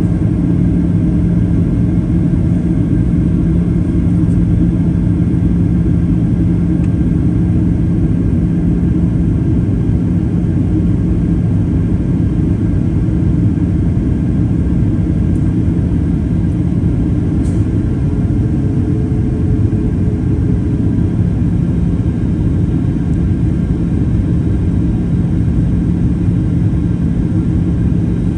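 Steady cabin noise inside a Boeing 737-800 during its descent: the CFM56-7B jet engines and the rush of air over the fuselage, with a steady low hum.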